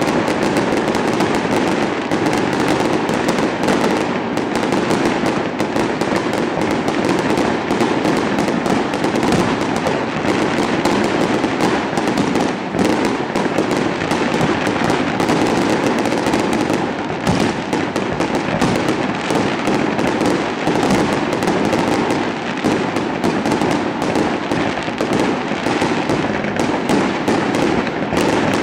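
Fireworks display going off in a dense, continuous barrage: many overlapping bangs and crackles from bursting aerial shells and rockets, with no pause.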